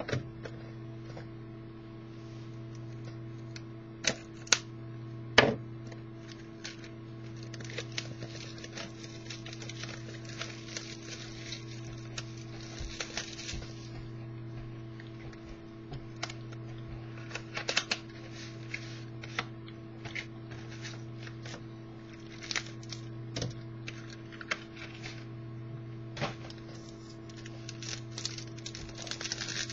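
Hands opening a sealed box of football trading cards: a few sharp clicks and knocks about four to five seconds in, then stretches of crinkling and rustling from the packaging and cards, over a steady electrical hum.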